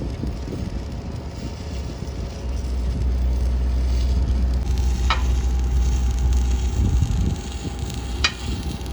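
Electric arc welding of threadlet fittings onto a steel pump pipe: a steady crackling sizzle over a low hum, louder from a few seconds in, with two sharp clicks about three seconds apart.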